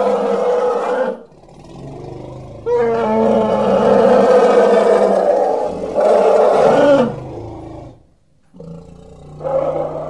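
Steppe mammoth sound effect: long, pitched animal calls. One ends about a second in, a long one runs from about three to seven seconds with a short break near six, and after a brief pause another call builds near the end.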